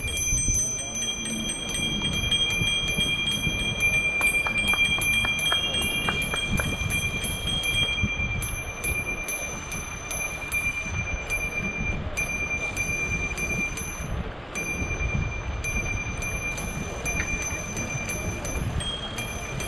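Wind rumbling against the microphone of a camera riding on a moving bicycle, with a steady high-pitched whine running over it. A few faint ticks come about four to seven seconds in.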